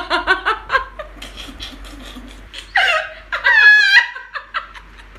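Two women laughing hard: quick rhythmic bursts of laughter at first, then softer laughter, with a loud, high-pitched squeal of laughter about three and a half seconds in.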